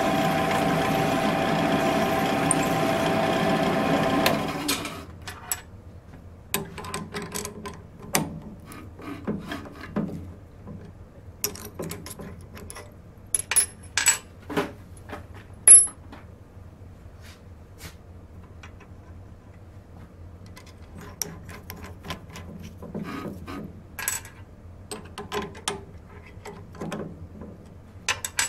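Drill press motor running steadily, switched off about four and a half seconds in and spinning down. Then scattered clicks and clinks of metal parts and tools being handled on the drill press's steel table, one sharp clink louder than the rest about sixteen seconds in.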